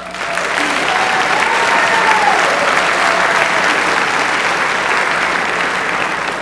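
Audience applauding, starting suddenly and loud, then beginning to die down near the end.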